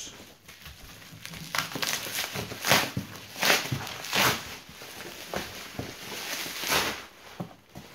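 Bubble wrap rustling and crinkling as it is handled and pulled off a cardboard box, in a string of irregular noisy swishes and crackles.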